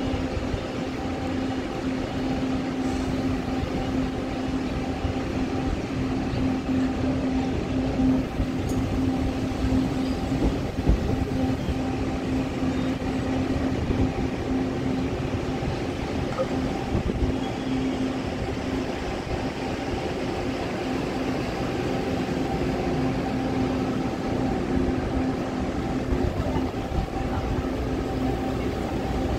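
Passenger train creeping slowly along a station platform, with a steady mechanical hum and a low rumble throughout and a few light knocks.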